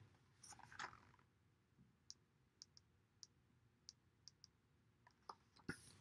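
Near silence while a picture book is handled: a soft rustle as it is turned round to show the page, a scatter of faint, irregular small clicks, and a brief rustle near the end as it is turned back.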